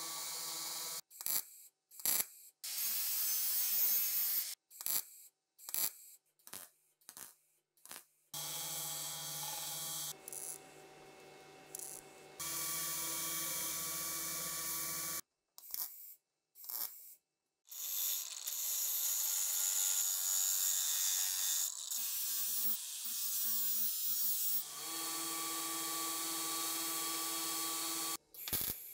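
A string of short, separately cut metallic workshop sounds, then an electric belt grinder running with a steady motor hum. Steel parts of a 1942 STEN Mk2 are pressed to the belt, with a steady grinding hiss in the last ten seconds.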